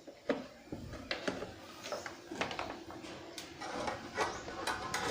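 Hands working inside an opened home theater unit, plugging a loose cable connector back onto the circuit board: a run of irregular plastic clicks, taps and rubbing, busier toward the end.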